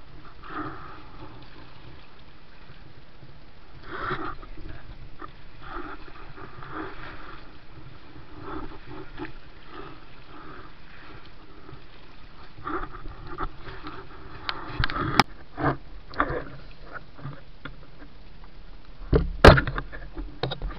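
Gear being handled aboard a small bamboo-outrigger boat: soft rustling and bumping over a low steady rumble, then a run of sharp knocks in the last third, the loudest about a second before the end.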